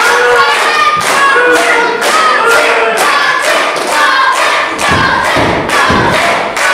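Wrestling crowd chanting in unison, clapping in rhythm about twice a second. From about five seconds in, heavy low thuds join the chant.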